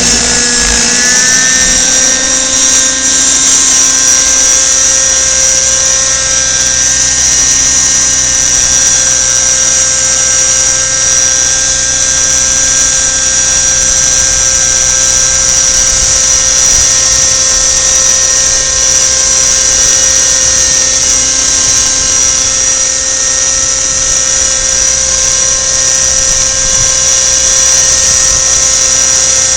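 Radio-controlled model helicopter in flight, its engine and rotor making a loud, steady, high-pitched whine that dips briefly in pitch and recovers about a second in.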